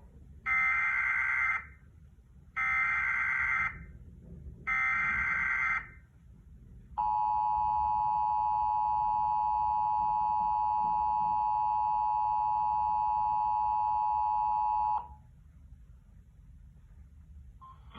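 Emergency Alert System alert tones opening a severe thunderstorm warning: three bursts of digital header data, each about a second long, then the steady two-tone attention signal held for about eight seconds before it cuts off.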